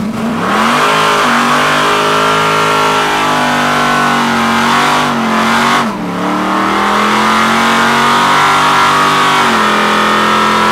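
Car engine revving hard through a burnout, heard from inside the cabin: the revs climb in the first second and are held high, dip sharply for a moment about halfway through, then climb and hold high again before easing off near the end.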